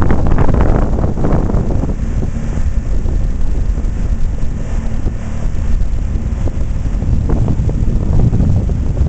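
Wind buffeting the microphone on a moving pontoon boat, over the steady hum of its outboard motor running under way.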